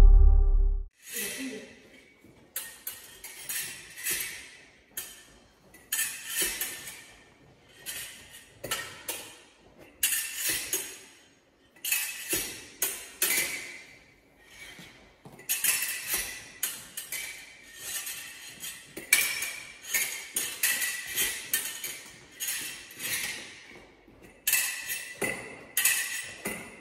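Fencing foil blades clinking and clashing in quick repeated bursts of contact, beats and parries between coach and student, each burst a handful of sharp metallic clicks with a brief ring, separated by short pauses. A music sting fades out in the first second.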